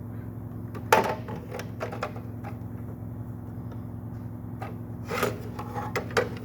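Scattered knocks and light clatter, about eight in all, of hard objects being handled and set down, over a steady low hum. No saw is running.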